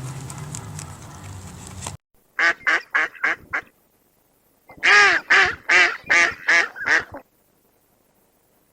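A duck quacking in two quick runs: about five short quacks, then a louder run of about seven. Before that, a noisy background with a low hum cuts off abruptly.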